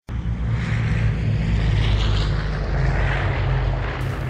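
Propeller aircraft engine running: a loud, steady low drone with a rushing hiss above it.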